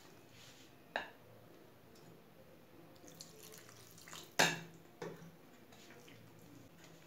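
A few sharp clinks of a utensil against a mixing bowl, the loudest about four seconds in, as malpua batter is mixed with milk added bit by bit.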